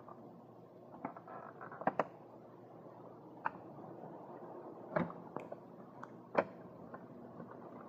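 Irregular sharp clicks and knocks, about eight of them, from parts being handled while a BMW E90's gear selector is taken out. They sit over a steady low hum, and the loudest two come in the second half.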